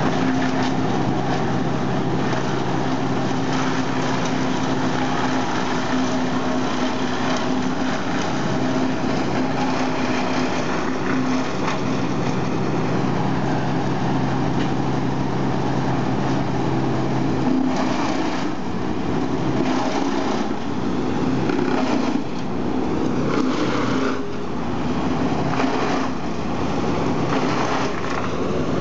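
Industrial wood chipper's engine running loud and steady; past the middle the sound turns uneven and rougher, with frequent short surges.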